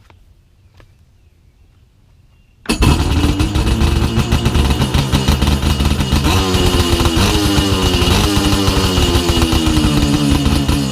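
Kawasaki SXR 800 stand-up jet ski's stock twin-cylinder two-stroke engine starting about three seconds in, catching at once and then running loudly, its pitch stepping up a few times with throttle and sinking back.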